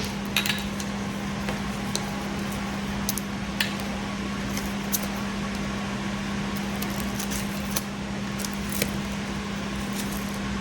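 A steady machine hum runs throughout, with scattered light clicks and taps from parts being handled on the laser tube.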